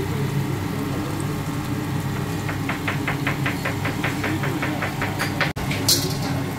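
A steady low mechanical hum from the hob area while a chilli sauce with onions and peppers cooks in a wok. In the middle comes a run of rapid, even clicks, about six a second, and near the end a brief hiss.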